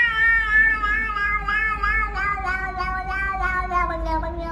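A cat's single long, drawn-out yowl that sinks slowly in pitch, with a slight waver.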